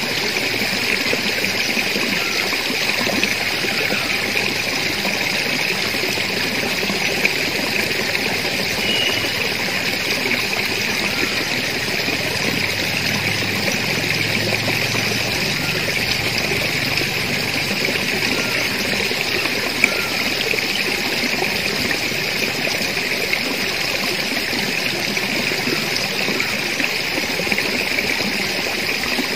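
Steady, even outdoor hiss with no distinct events beyond a couple of faint ticks.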